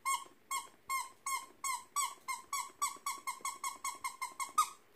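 A string of about twenty short, high squeaks, each dipping slightly in pitch, speeding up from about two to about five a second and stopping just before the end.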